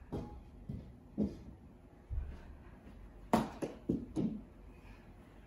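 A few light knocks and taps, with a cluster of them a little past three seconds in, from players moving about with mini hockey sticks.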